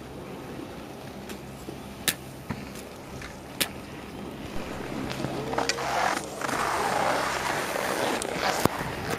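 Skis starting to slide on hard, very cold groomed snow: a scraping hiss that grows louder from about halfway through. Before it, a low steady hum and a few sharp clicks.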